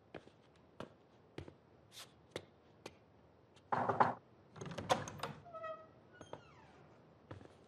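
A few soft steps, then a heavy carved wooden door being opened: a clunk and rustle about four seconds in, followed by a short creak of the hinge.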